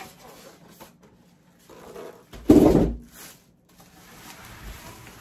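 Styrofoam packing pieces being pulled apart and moved, with one loud scraping thump about two and a half seconds in. Plastic wrapping rustles softly near the end.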